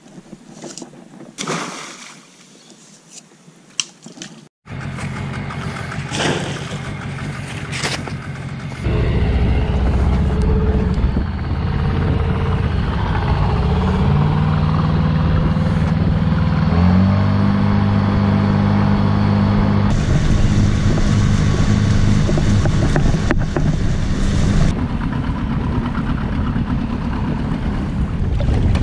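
Small Tohatsu outboard motor running, pushing an inflatable boat across the water, with wind and water noise; its note steps up in pitch partway through.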